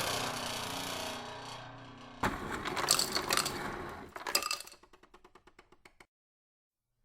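A string of edited sound effects: a sound with a few held tones, then a louder dense noisy burst, then a run of rapid ticks that cuts off abruptly into dead silence about a second before the end.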